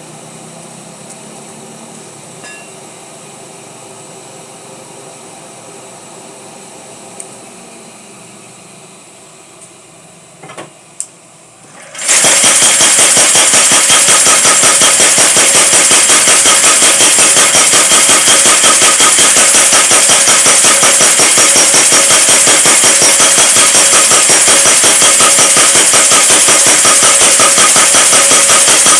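A faint steady machine hum with a couple of small clicks, then about twelve seconds in a mechanical power hammer starts pounding: loud, rapid blows in a steady, even rhythm that keeps going.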